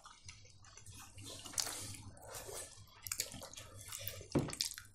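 Quiet eating sounds at a meal of boiled dumplings: wet chewing and mouth noises with scattered small clicks and scrapes of cutlery on dishes, and a few louder short sharp sounds.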